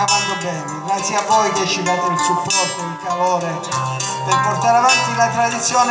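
Live acoustic folk music: plucked acoustic guitars over a steady bass, with short bright strokes from a hand-held frame drum.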